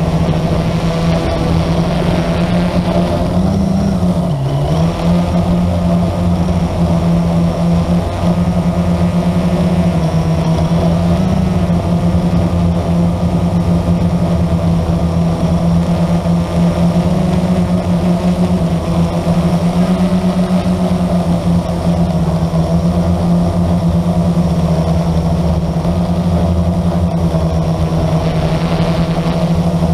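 Blade 350 QX quadcopter's four brushless motors and propellers buzzing steadily, heard close up from the onboard camera. The pitch dips briefly about four seconds in and shifts slightly now and then as the throttle changes.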